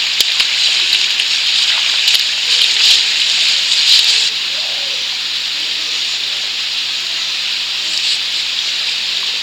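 Steady rushing hiss of flowing water, dropping a little in level about four seconds in, with a few faint clicks.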